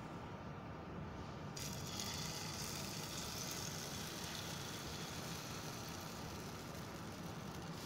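Beaten egg sizzling as it is poured into a hot nonstick frying pan. The hiss comes in about a second and a half in, over the steady hum of an electric cooktop's fan.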